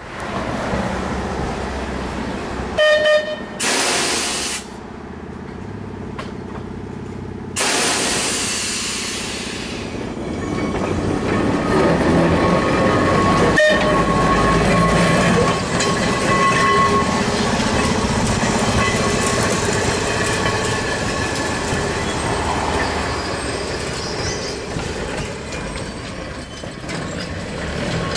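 Vintage Manx Electric Railway tramcar and trailer rolling slowly over depot track and points, with a steady rumble and rattle and high wheel squeal. A single sharp clank comes about halfway through. A few short, loud blasts come in the first ten seconds.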